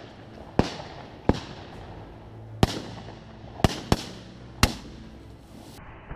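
Twelve-gauge shotgun shots: six sharp reports in about four seconds, two of them fired a third of a second apart, each followed by a short echo.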